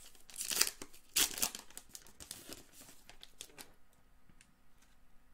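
A foil pack of Topps Gold Label baseball cards being torn open and its wrapper crinkled, in a run of crackling bursts that dies down about two-thirds of the way through, leaving a few faint clicks.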